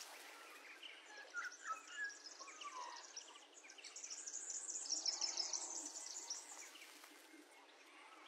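Faint outdoor garden ambience: birds chirping in short gliding calls and insects chirring in fast high-pitched pulses, the chirring loudest about halfway through.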